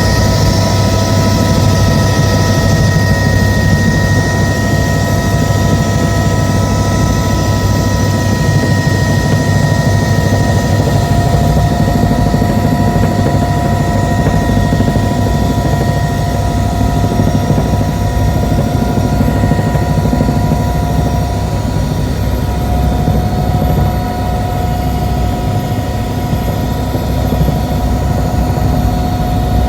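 Tour helicopter running steadily as it comes in to land: fast rotor chop with a steady high turbine whine over it, easing slightly near the end.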